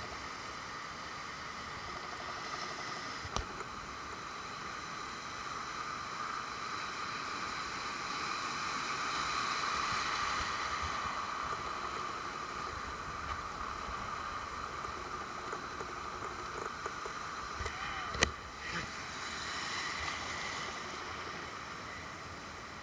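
Ocean surf washing and breaking in the shallows as a steady hiss of water that swells louder toward the middle. A sharp click comes about three seconds in, and a louder knock later on.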